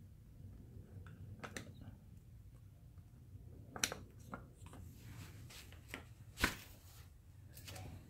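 Flat screwdriver clicking and scraping against the plastic stock clutch pedal while prying its rubber piece out: scattered light clicks, with a sharper one about four seconds in and the loudest about six and a half seconds in.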